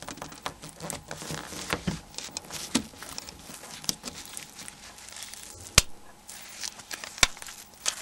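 Small plastic clicks and handling noises as mobile phone parts are fitted together, with two sharp, louder clicks in the second half about a second and a half apart.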